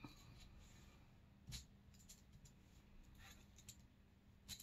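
Near silence: room tone with a few faint taps and clicks from a glue bottle and paper strips being handled on a tabletop, the clearest about a second and a half in and another near the end.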